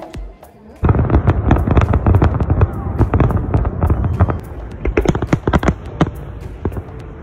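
Fireworks display: a dense barrage of bangs and crackles with a low rumble bursts in suddenly about a second in. It thins in the second half to separate sharp pops.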